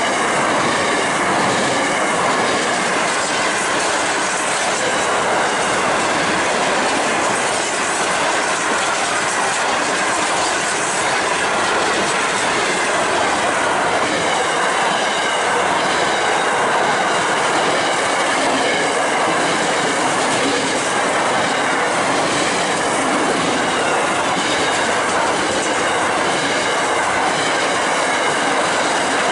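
Freight train wagons rolling steadily past: steel wheels running on the rails with a continuous loud rumble and clatter, with a faint high wheel squeal over it.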